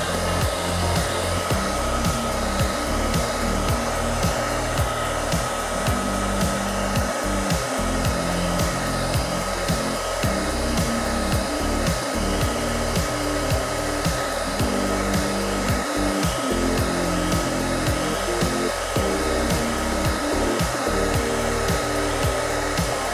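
Handheld hot-air blower running steadily with a constant whine, the kind used to heat and soften old vinyl hood decals so they peel off. Background music with a steady bass line plays under it.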